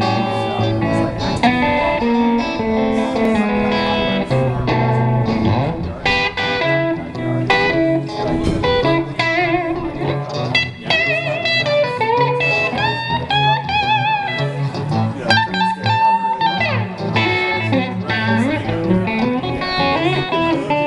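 Two electric guitars playing blues live through small amplifiers. A low repeating rhythm part runs under a lead line, and the lead bends and shakes its notes with vibrato in the middle.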